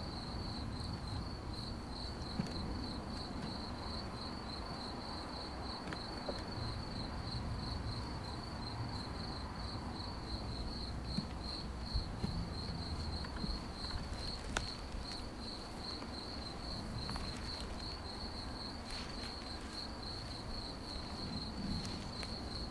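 Crickets chirping in a steady, even, high-pitched pulse that never breaks, over a low, steady rumble.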